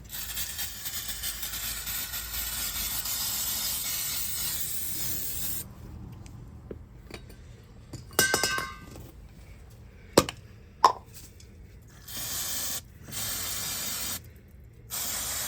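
Aerosol brake cleaner spraying in a long steady hiss, then in several short blasts near the end. In between come a few ringing metallic clinks and two sharp knocks.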